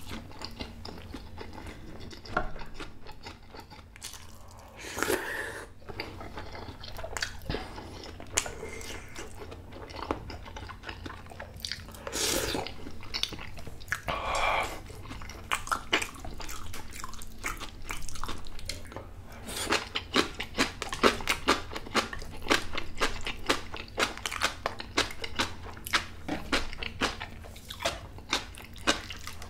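A person chewing and biting food close to the microphone, with wet, crunchy clicks that come thicker and faster in the second half.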